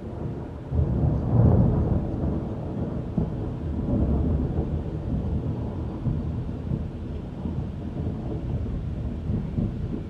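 Thunder: a sudden loud burst about a second in, then a long low rumble that rolls on unevenly.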